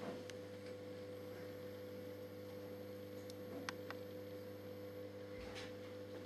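Steady electrical hum over quiet room tone, with a few faint ticks a little after three seconds in and a brief soft rustle near the end.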